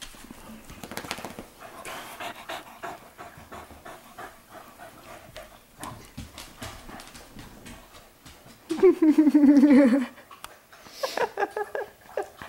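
Dogs panting and scuffling during play. About nine seconds in, one dog gives a loud, drawn-out, wavering vocal call lasting about a second.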